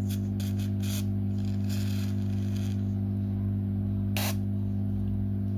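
Steady electrical hum, with a few short scrapes and clicks of small parts being handled on the workbench; the sharpest click comes about four seconds in.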